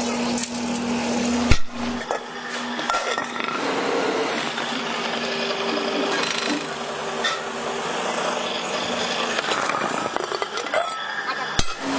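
Metalworking noise as an aluminium bowl turns on a belt-driven spinning lathe, with a steady machine tone in the middle. A sharp metal knock sounds about a second and a half in and another near the end.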